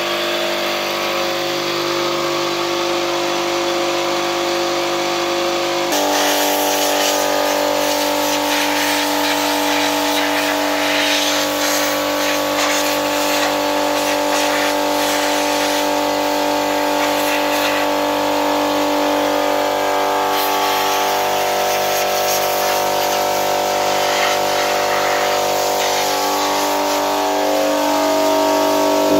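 A motor running steadily, humming on several steady tones; about six seconds in its pitch shifts and a hissing, rattling noise joins it.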